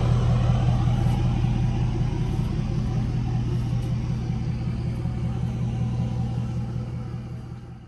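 An engine running steadily with a low rumble, slowly getting quieter and fading out at the very end.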